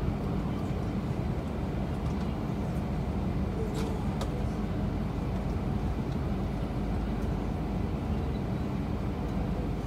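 Steady low rumble of an Airbus A320's jet engines at ground idle, heard inside the passenger cabin, with a couple of faint clicks about four seconds in.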